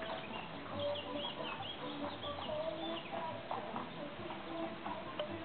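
Birds calling, with a run of quick, short high chirps in the first half.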